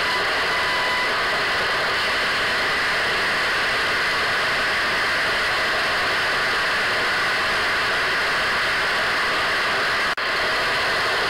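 Radio static: a steady, band-limited hiss like a receiver tuned between stations, with a faint whistling tone in the first second. It cuts out for an instant near the end, then resumes.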